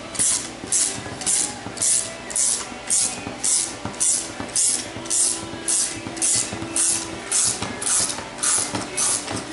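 Clutch spring compressor tool being unscrewed by hand from a Turbo 400 forward clutch drum, releasing the clutch piston springs: short hissing scrapes in an even rhythm, about two and a half a second.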